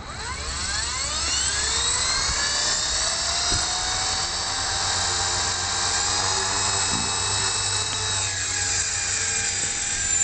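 Blade CP Pro 2 electric RC helicopter spooling up: its high whine climbs in pitch over about two seconds, then runs steady with the rotor. About eight seconds in the pitch shifts and wavers as it lifts off.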